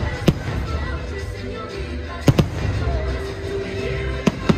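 Fireworks bursting overhead: about five sharp bangs, in two close pairs a little over two seconds in and near the end, over the show's music.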